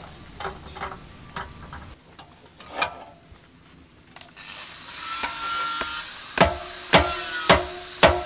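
Hand hammer striking a red-hot steel bar clamped in a steel bench vise, four sharp ringing blows about two a second in the second half. Before the blows come a few light metal clicks and knocks, then a brief hiss.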